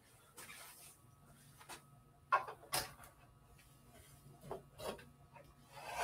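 Faint handling clicks and knocks of a plastic model being lifted off its display stand and set down. Two sharper knocks come about two and a half seconds in, with a few lighter clicks near the end.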